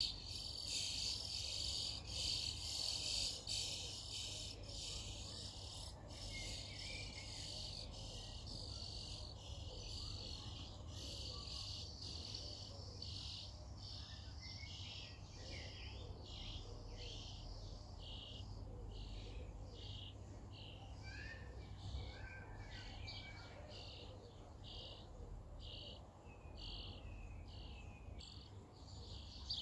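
Nestling birds begging for food: a high-pitched chorus that is densest and loudest in the first few seconds, then settles into short calls repeated about twice a second. A few separate chirps come in around twenty-one to twenty-three seconds in.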